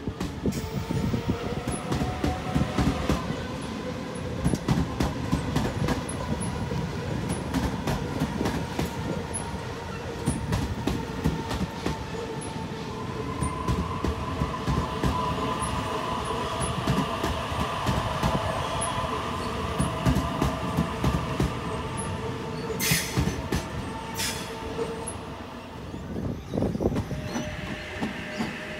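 Sydney Trains double-deck electric trains passing close by: a steady rumble with wheels clicking over the rail joints and a motor whine that swells in the middle. Two brief high hissing sounds come near the end.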